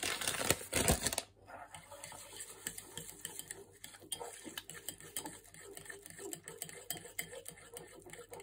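A short rustle as shredded coconut is shaken from its bag. Then a long metal spoon stirs thick pancake batter in a ceramic bowl, scraping and clicking against the bowl many times.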